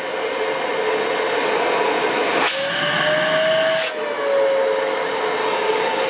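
Rowenta bagless canister vacuum cleaner running at full power: a steady motor whine over rushing air. About two and a half seconds in, the whine rises slightly and the hiss grows louder for about a second and a half, then both settle back to the steady run.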